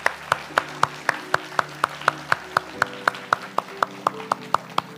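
Hands clapping in a steady rhythm, about four sharp claps a second, stopping shortly before the end.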